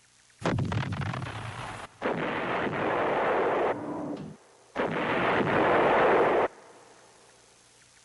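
Artillery firing in three separate loud stretches, each starting with a sharp blast and cutting off abruptly.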